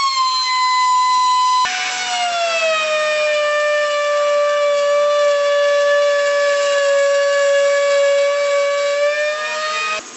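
Loud, steady whine of a power tool's motor in two takes. The first is higher-pitched and breaks off suddenly before two seconds in. The second is lower and sags slowly in pitch before cutting off near the end.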